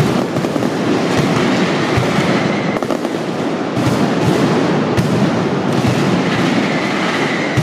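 Mascletà firecrackers going off in a dense, unbroken barrage, the rapid bangs running together into one continuous rattle.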